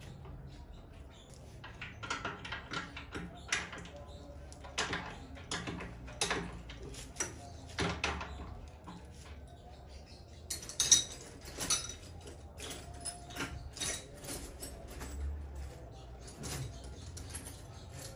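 Irregular metallic clicks, clinks and knocks of hand tools and parts as an industrial sewing machine is fitted to its table, with one sharp knock about eleven seconds in.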